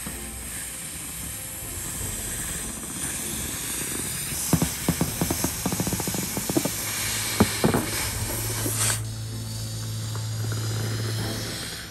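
Inflated rubber balloons being handled and pressed by hand: a cluster of short rubbing and tapping sounds in the middle, over a steady hiss.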